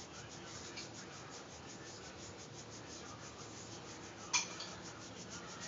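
Quiet room tone with a single short sharp click about four seconds in.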